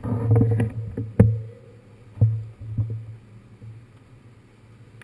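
New York subway car running: a steady low rumble with sharp knocks and clanks, the loudest about a second in and two more over the next two seconds, settling quieter after that.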